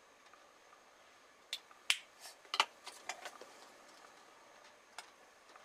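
Small sharp clicks and taps of makeup items being handled and set down: a quick cluster from about one and a half to three and a half seconds in, then one more click near the end.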